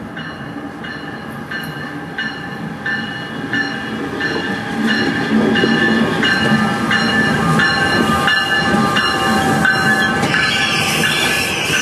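NJ Transit ALP-46A electric locomotive and multilevel coaches pulling into a station past the listener. The wheels click over the rail joints in a regular beat over a steady whine, getting louder as the locomotive draws level. Near the end a high hissing squeal sets in as the train brakes.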